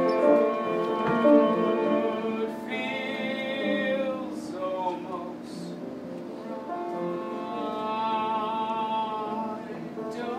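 A solo voice singing a musical theatre song in long held notes over instrumental accompaniment.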